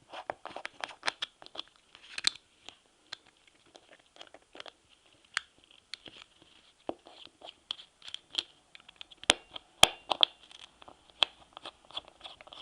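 Two small screws being unscrewed from the plastic body of a GZK-58 piezo phono cartridge: irregular light clicks, ticks and scrapes of the tool and of the cartridge being handled, with two sharper clicks about nine and ten seconds in.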